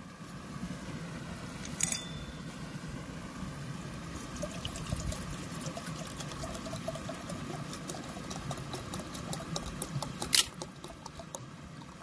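Water poured from a plastic bottle into an empty brass kettle: a steady splashing stream with many small gurgling ticks. Two sharp clicks stand out, one about two seconds in and a louder one near the end.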